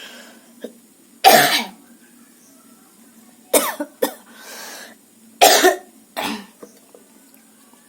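A woman coughing: five short, separate coughs over about five seconds, the first the loudest.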